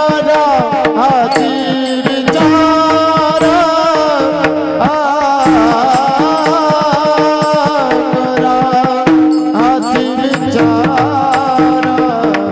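Male voices singing a Marathi Varkari kirtan melody, accompanied by small hand cymbals (tal) struck in a steady rhythm over a held drone.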